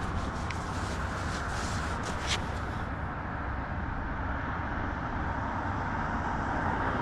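Steady outdoor rush of passing road traffic with low wind rumble on the microphone, and a few light clicks and taps in the first couple of seconds.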